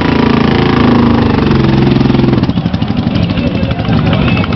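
Custom chopper's V-twin motorcycle engine held at high revs, then dropping back about two and a half seconds in to an idle with a distinct beat of firing pulses.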